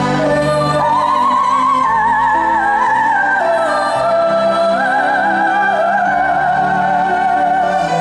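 A soprano singing a wordless, operatic melody in long held notes with wide vibrato, stepping from pitch to pitch, over grand piano and orchestra.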